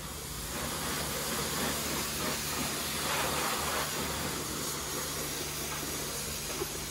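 Self-service car-wash spray wand spraying foam onto a car body: a continuous hiss of spray with a steady low hum underneath.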